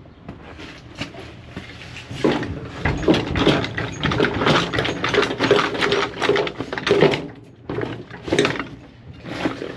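Rummaging through a box of hand tools: a busy run of metal tools clinking, clattering and knocking together, starting about two seconds in, with short ringing notes among the knocks.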